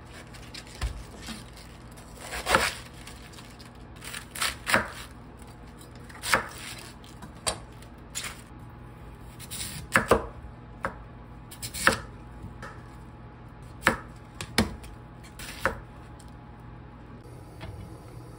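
Chef's knife cutting cabbage and then Korean radish on a wooden cutting board: about a dozen separate crisp strokes, a second or two apart at an uneven pace.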